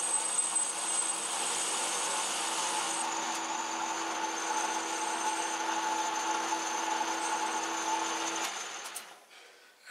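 Atlas metal lathe running while an insert turning tool faces the side of a metal pulley: a steady machine hum with cutting hiss and a high whine. It winds down and fades out near the end.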